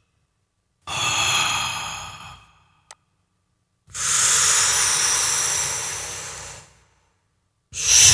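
Mouth-made breathy exhale sound effect, processed with compression and reverb, played back in repeated takes. A short one comes about a second in and a longer one about four seconds in, each fading out, and another starts near the end.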